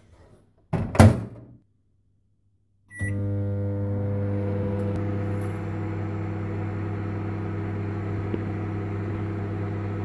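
Kenwood microwave oven: the door shuts with a thunk about a second in, then a short beep and the oven starts up, running with a steady low hum.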